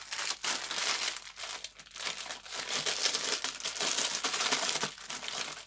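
Plastic packaging rustling and crinkling as items are handled and pulled out of a parcel, an irregular, continuous crackle with no speech.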